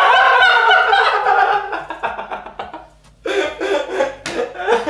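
A group of people laughing loudly, with high-pitched, shrieking cackles. The laughter dies down about three seconds in, then breaks out again.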